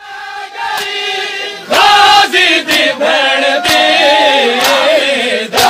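A crowd of men chanting a Muharram noha (Shia lament) together, many voices wavering in pitch. Sharp slaps cut in about nine times at uneven intervals. It starts abruptly and grows louder after about a second and a half.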